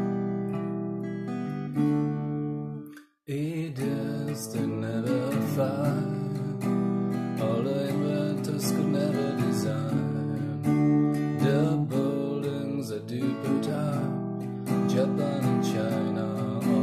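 Acoustic guitar strummed in chords, stopping dead for a moment about three seconds in and then starting again. From about four seconds in, a man's voice sings along over the guitar.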